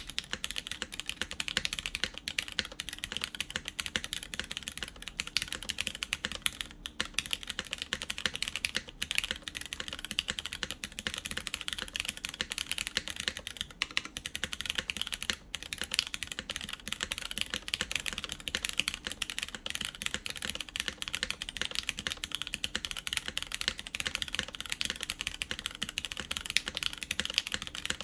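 Fast, continuous typing on a BeatLab Solar80 mechanical keyboard with lubed Cherry MX Brown tactile switches in an aluminum plate, GMK keycaps: a dense run of keystroke clacks with only the briefest pauses.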